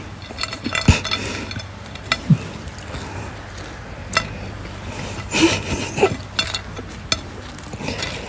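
Light clinks and scrapes of a ceramic dinner plate as a hand picks through French fries, with several sharp clicks scattered through.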